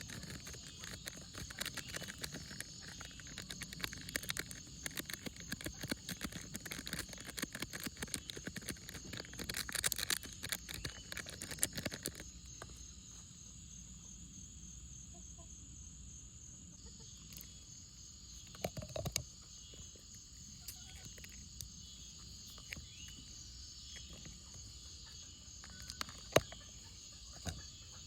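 Butter slime being squished and poked by hand: rapid small crackles and clicks for about the first twelve seconds, then only a few scattered clicks.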